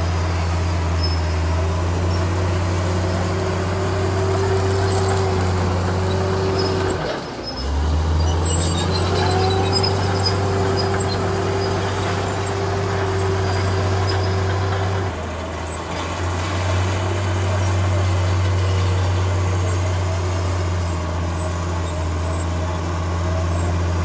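Heavy diesel engine of a construction machine running steadily under load, a deep even drone with two brief dips in level, one about a third of the way in and one about two-thirds of the way in.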